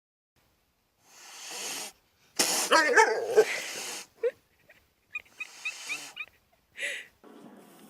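A dog whimpering and whining in short, gliding cries, the loudest cluster about two and a half seconds in, followed by a few smaller squeaky cries.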